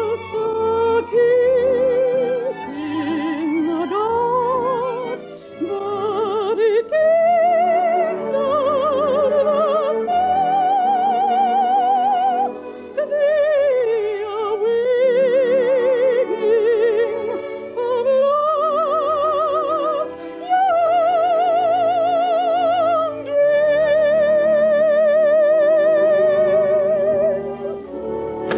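Soprano singing an operetta song with orchestral accompaniment. She holds long high notes with a wide vibrato and swoops up between them, ending on one long sustained note about two seconds before the close.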